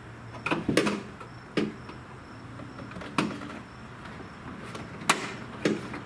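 Sharp plastic clicks and knocks from a screwdriver prying at a car's license plate lamp housing and its retaining tabs, in a handful of separate strokes with a quick cluster about half a second to a second in. A steady low hum runs underneath.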